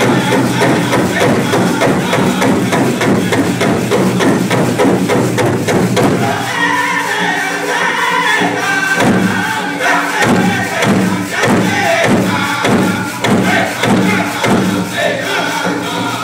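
Powwow drum group beating a steady rhythm in unison on a large drum while the singers chant a song together.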